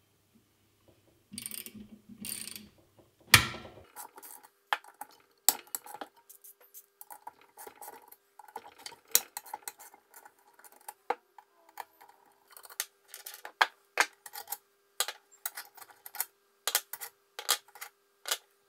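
Socket ratchet working on an electric motor's end-cap through-bolts, then a run of small metal clicks and clinks as the long bolts and their nuts are handled and set down on a wooden bench. A sharp knock comes about three and a half seconds in and is the loudest sound.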